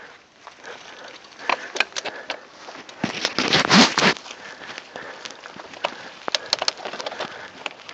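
Mountain bike riding fast downhill on a dry, leaf-covered dirt trail: tyres crackling over leaves and the bike rattling over bumps in short clicks and knocks. A louder rush of noise comes about three seconds in.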